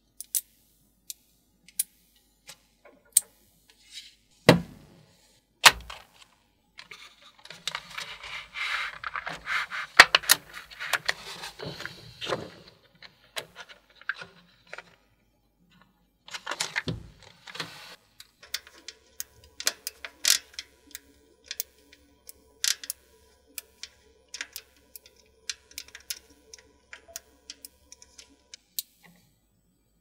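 Small neodymium magnet balls clicking and snapping together as they are handled and pressed into place, a string of sharp separate ticks. A stretch of crinkly rustling comes about a quarter of the way in, and a faint steady hum sits under the later clicks.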